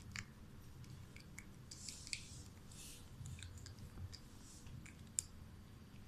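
Alexandrine parakeet gnawing and clicking its beak on a plastic bottle cap, with the cap scraping on the tiled floor. The sound is faint and irregular: small clicks, a few short scrapes, and one sharper click about five seconds in.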